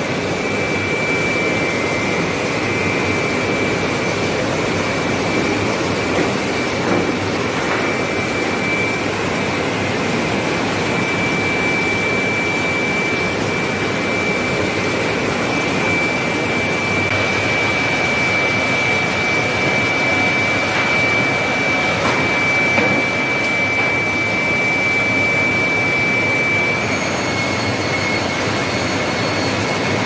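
Sawmill line machinery running: a steady loud mechanical din of motors, circular saws and chain conveyors, with a high steady whine that drops away near the end.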